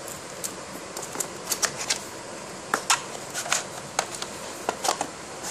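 Cardboard box being opened by hand: the paperboard sleeve and white inner tray slide, rub and snap in a run of irregular clicks and short scrapes.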